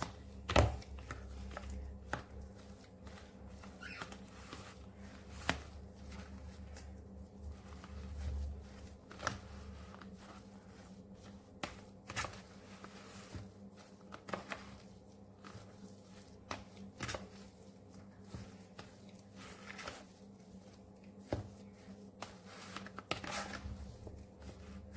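Spoon mixing mashed potato with herbs and spices in a plastic bowl: soft scraping and stirring with scattered sharp clicks of the spoon against the bowl, over a faint steady low hum.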